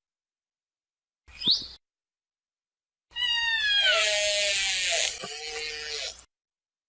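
Killer whale calls: a short call rising in pitch, then after a pause a longer call of about three seconds that falls in pitch and turns buzzy before cutting off.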